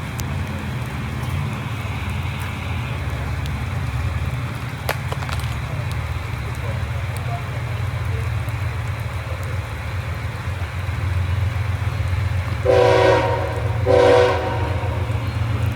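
Approaching CSX freight train led by GE ES44AH diesel locomotives, with a steady low engine rumble that slowly grows louder. Near the end the locomotive air horn sounds two short blasts about a second apart.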